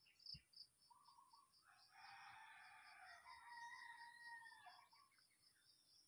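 Faint outdoor ambience: a distant rooster crowing once for about three seconds, over steady high insect chirping at about four or five chirps a second. A soft knock just after the start.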